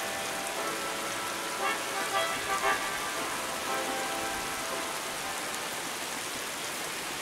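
Steady rain hiss, with soft sustained music tones beneath it that fade out after about three seconds. A few brief louder sounds stand out between two and three seconds in.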